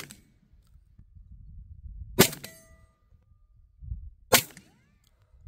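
Beretta 1301 Tactical 12-gauge semi-automatic shotgun fired twice, about two seconds apart, each a sharp crack. A brief ringing tone follows the first shot.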